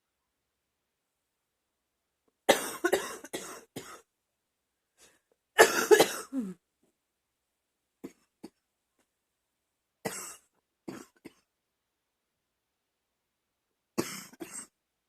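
A woman's chesty, wet cough coming in fits: a run of several coughs about two and a half seconds in, another around six seconds, a few short ones around eight to eleven seconds, and a last fit near the end, with pauses between.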